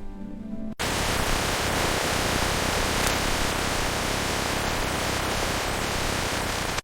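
A few notes of background music, then about a second in a loud, steady hiss cuts in suddenly and holds evenly, like a factory's ambient machine noise.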